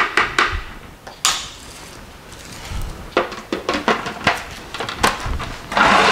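A spoon clinking against a Magimix food processor bowl and the lid being fitted back on over a sheet of plastic wrap, a run of clicks and knocks. Near the end the food processor starts, its motor running loud and steady as the blade pulps tomatoes.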